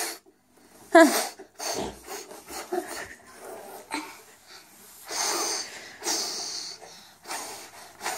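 A small child blowing hard at a plastic ball on a tabletop: a series of short breathy puffs, with a longer blow about five seconds in.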